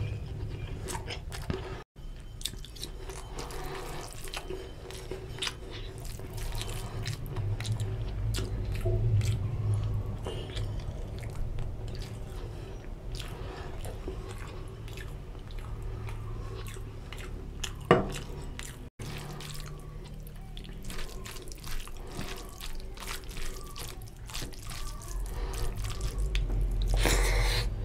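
Close-miked wet eating sounds: chewing of chicken and egg curry with rice eaten by hand, with many small wet mouth clicks and the squish of fingers working gravy-soaked rice. A single sharp click stands out about two-thirds of the way through.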